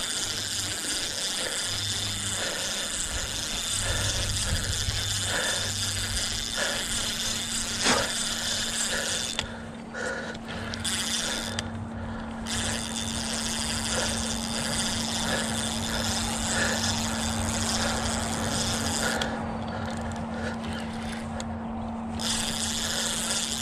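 Spinning reel working against a hooked striped bass, the line under tension, over a steady hiss.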